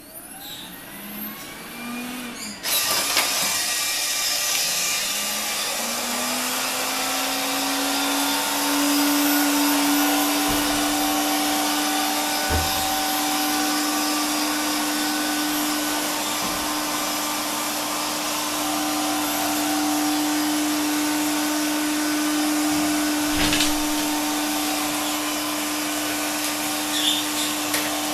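AEG robot vacuum cleaner starting up: a faint rising whine for the first couple of seconds, then the suction cuts in abruptly and runs steadily, with a hum that climbs in pitch and settles, and a few short knocks.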